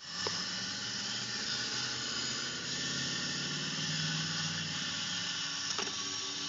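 Steady hiss with a faint low hum and faint steady tones: a small four-wheeled robot rover driving through sand under its electric motors, heard through outdoor microphone noise.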